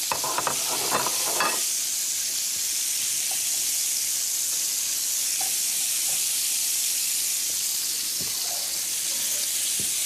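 Duck pieces frying in their own fat in a pan, a steady sizzle, with a fork and spatula clicking and scraping against the pan in the first second or so.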